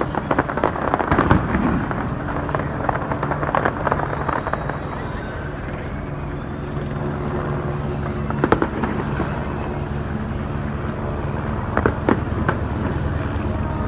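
Fireworks display bursting: a dense run of crackling bangs in the first two seconds, then scattered single bangs, with a couple of sharper ones about eight and a half and twelve seconds in.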